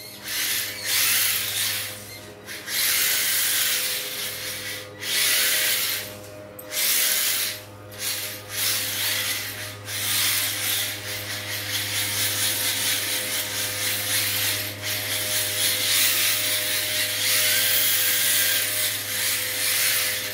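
HSP 1:10 4WD drift car with a brushed electric motor, driven in bursts of throttle across a tile floor. The motor and drivetrain whir and the tyres hiss as they slide on the tiles, dropping away briefly between bursts several times.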